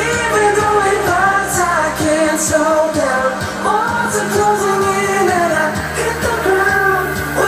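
Live band playing with a singer, the voice line gliding and bending in pitch over long held low notes.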